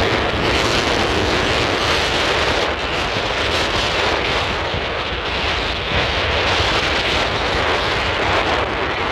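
Wind blowing across the microphone: a loud, steady rushing noise with a heavy low rumble.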